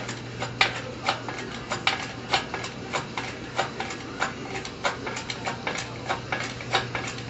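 Hydraulic engine hoist being pumped by its handle to lift an engine, with regular clicks about twice a second from the pump strokes.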